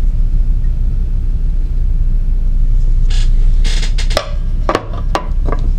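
Steady low rumble with handling noise over it: from about three seconds in, a few short rustles and several sharp clicks and knocks as one knife is put down and the next picked up.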